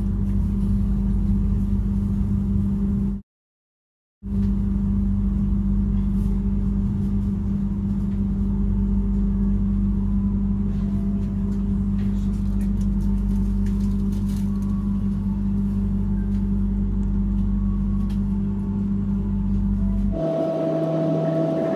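Argo Wilis passenger train running at speed: a steady rumble with a constant low drone. The sound cuts out completely for about a second shortly after the start.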